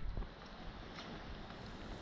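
Faint wind rumble on the microphone over a quiet outdoor hiss, after a louder rumble dies away at the very start. There is one faint tick about a second in.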